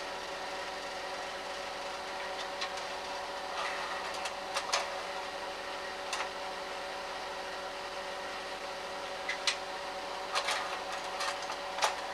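Slide projector running with a steady fan and motor hum, with scattered clicks and clacks of the slide mechanism changing slides. The loudest click comes near the end.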